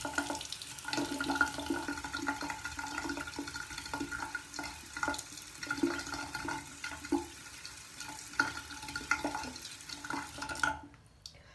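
Bathroom sink tap running, water splashing irregularly into the basin, then shut off abruptly near the end.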